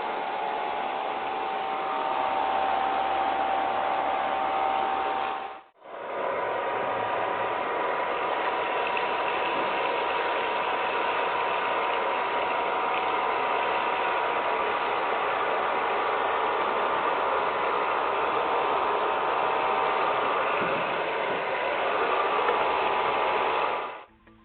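Small electric motor and fan of a homemade vacuum cleaner running with a steady whir. It drops out briefly about six seconds in, then runs on.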